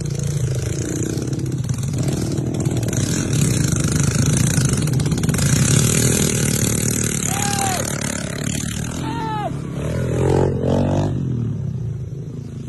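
Dirt bike engine running and revving as the bike rides a dirt trail.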